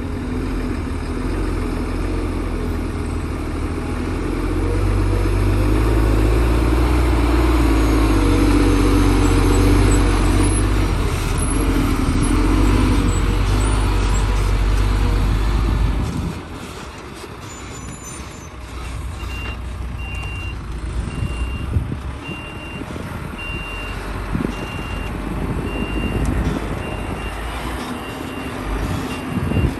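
Heavy diesel machinery working, loud and steady, then dropping off sharply a little past halfway. About two-thirds of the way in, a truck's reversing alarm starts beeping about once a second and continues to the end.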